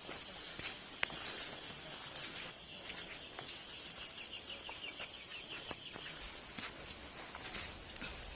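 Outdoor rural ambience on a hiking trail: a steady high-pitched insect drone, with scattered footstep clicks. From about two and a half seconds in, a rapid chattering trill of short repeated notes runs for about three seconds.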